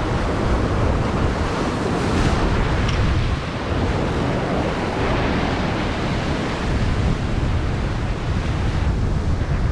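Ocean surf breaking and washing against a rocky shoreline, a steady rushing roar with wind buffeting the microphone; one wave crashes a little louder about two seconds in.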